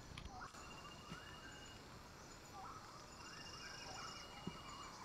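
Birds-of-paradise calling in forest, a run of harsh calls that arch up and down in pitch, coming more often in the second half. A faint high buzz sounds briefly a little past the middle.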